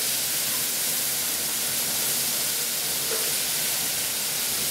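Chopped onion, celery, capsicum and chili sizzling in hot olive oil in a frying pan, a steady even hiss.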